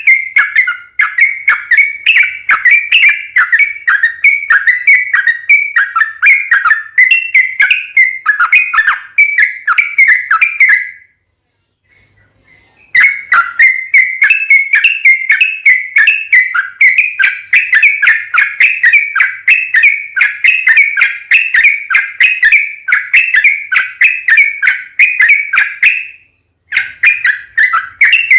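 Yellow-vented bulbul (trucuk) singing a long, rapid series of short whistled notes, about four a second, in the long-running chattering style used as fighting song to provoke other males. The song breaks off for about two seconds partway through, then resumes, with another brief pause near the end.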